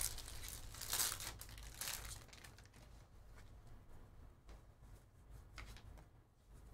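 Plastic wrapper of a Panini Donruss basketball trading-card pack being torn open and crinkled, loudest in three bursts over the first two seconds. After that comes softer rustling and clicking as the stack of cards is slid out and handled.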